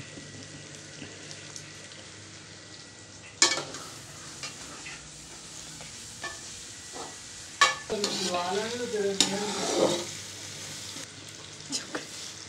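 Dal frying in a steel wok, stirred with a metal slotted spoon: a steady sizzle with sharp knocks of metal on the pan, the loudest about three and a half and seven and a half seconds in. From about eight to ten seconds a wavering voice sounds over the frying.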